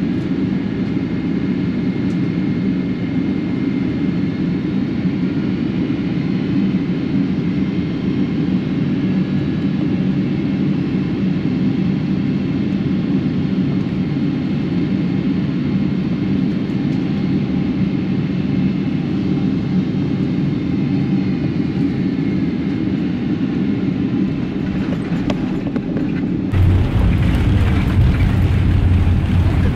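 Steady roar of a Pratt & Whitney-powered Boeing 777's engines and airflow heard inside the cabin, low and heavy, with a faint high whine. Near the end it turns louder and deeper.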